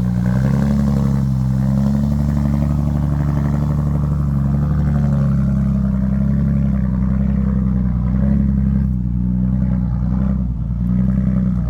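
Heavy diesel dump truck engine working hard under load, a loud steady drone whose pitch wavers slightly as it pulls.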